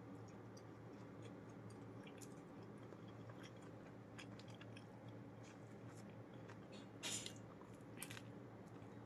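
A person chewing and biting food close to the microphone: faint, irregular little crunches and wet clicks, with two louder crunchy bites about seven and eight seconds in. A steady low electrical hum runs underneath.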